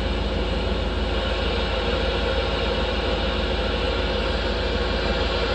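Steady hiss of static from a CB radio receiver between transmissions, with a low hum underneath.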